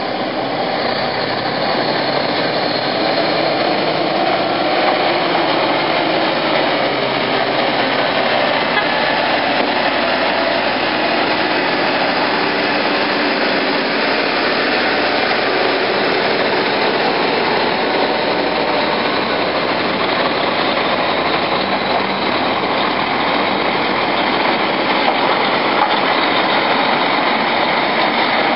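Diesel engines of a Liebherr LTM1400-7.1 mobile crane and a heavy-haul tractor unit with a loaded low trailer running as they drive slowly past close by, a steady, loud engine noise without a break.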